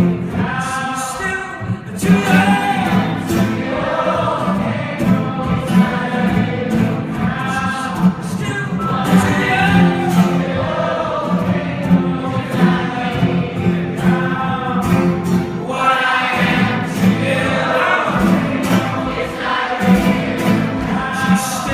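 Live concert performance of a song: singing with instrumental accompaniment, continuing steadily.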